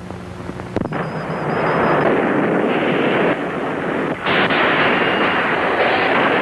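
Film sound effects of a bursting dam. A sharp crack about a second in sets off a loud, continuous rushing noise, which grows brighter from about four seconds in as water gushes over the dam.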